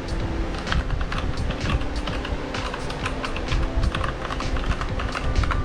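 Typing on a Keychron K8 mechanical keyboard with Gateron switches in its hard-plastic case: a quick, irregular run of keystrokes, several a second.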